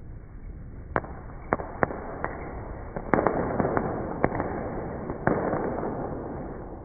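Fireworks going off: a handful of separate sharp bangs, then a dense run of crackling pops about three seconds in, and one more bang near the end as the crackle dies away.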